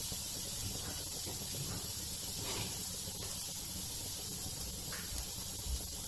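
Potato cubes frying in oil in a pan on a low gas flame, giving a steady, even sizzling hiss.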